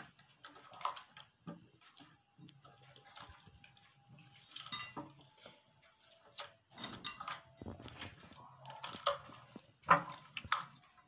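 Hands squishing and kneading glitter slime in a glass bowl: soft, irregular wet squelches and sticky clicks.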